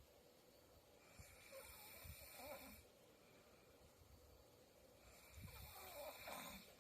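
A woman snoring in her sleep, faint: two snoring breaths about four seconds apart, each a raspy rattle lasting nearly two seconds.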